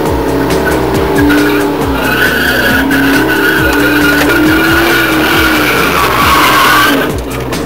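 Tyres squealing through a burnout, with a steady high squeal held for several seconds over the engine rising and falling in pitch, heard from inside a neighbouring car's cabin. The burnout car is a Holden VS Commodore SS.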